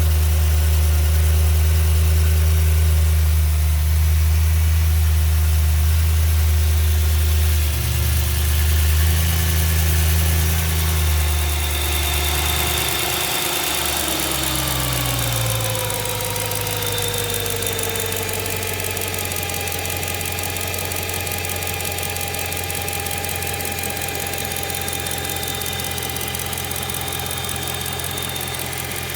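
BMW M3 E92's 4.0-litre V8 running, with the ticking of an exhaust manifold leak that can be mistaken for conrod bearing knock. About halfway through, the low engine tone shifts and a whine falls in pitch, and the engine runs on a little quieter.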